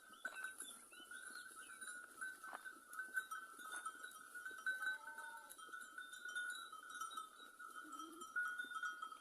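Flock of sheep with bells clinking, and one short bleat about five seconds in.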